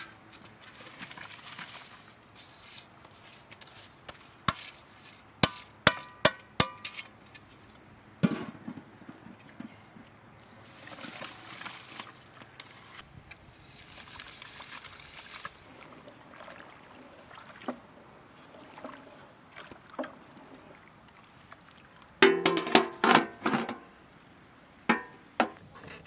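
Metal pots and pans clanking several times with a ringing note. A soft rushing as drained rice slides from a metal colander into a large steaming cooking pot. Near the end a quick burst of clattering strikes, then a few clinks as a glass teapot and its lid are handled.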